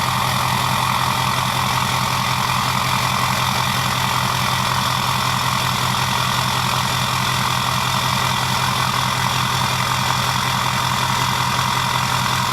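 Ford 6.0 Powerstroke V8 turbodiesel with a Garrett Powermax turbo idling steadily, with a steady high whine above the engine's rapid low pulse.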